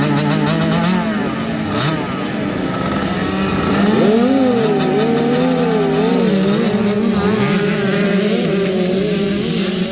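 Several 65cc two-stroke motocross bike engines revving together, their pitches wavering up and down. One engine revs up sharply about four seconds in.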